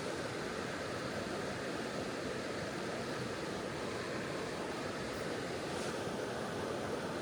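Steady rushing of a mountain creek's flowing water, an even noise with no breaks.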